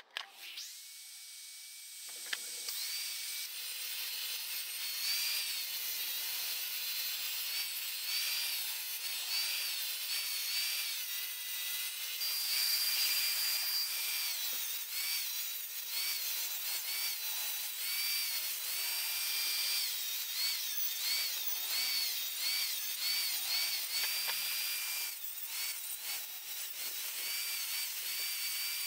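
Angle grinder spinning up near the start, then running with a disc pressed against the outside of a BSA B31's cast-iron cylinder barrel: a steady motor whine over a gritty abrading hiss. The whine's pitch dips and recovers again and again as the disc bites and eases off.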